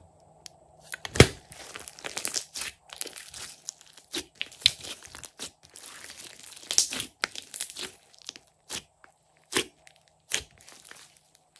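Hands squeezing and kneading a large mass of glossy slime, making a run of wet crackles and pops. The loudest is a single sharp pop about a second in.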